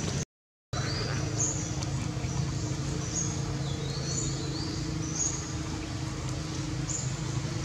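Short high bird chirps repeating about once a second over a steady low hum. The audio cuts out for about half a second just after the start.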